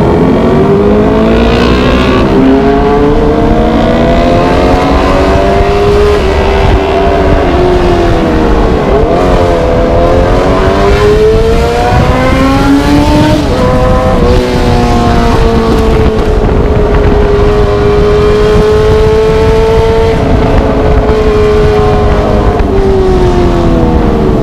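Motorcycle engine with a loud aftermarket exhaust under way, its revs climbing and falling as it accelerates and eases off, with a quick drop and climb near the middle and a long steady stretch later. A constant low rumble of wind runs under it.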